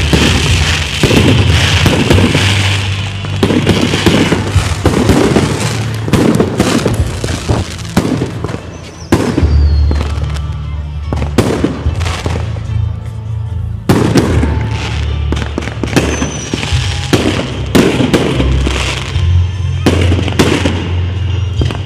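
Fireworks display: a rapid succession of bangs from bursting aerial shells, easing briefly about eight seconds in, with music playing underneath.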